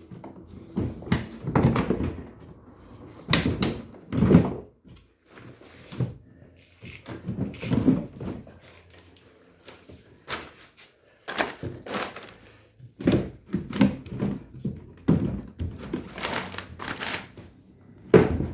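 Washing machine parts being handled and fitted during reassembly: a string of irregular knocks, thunks and scrapes, with a squeak here and there.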